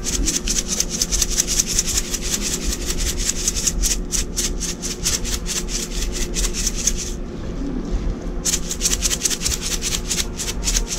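Hand rubbing salt and green seasoning into the scaly skin of a whole triple tail fish on a wooden board: quick, even rubbing strokes, about five or six a second, with a pause of about a second two-thirds of the way in.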